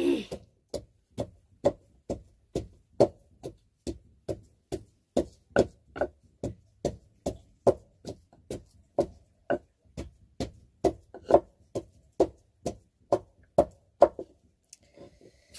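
Steady, even knocks of food being pounded by hand, about two and a half strikes a second, with a short woody ring to each; the pounding stops about fourteen seconds in.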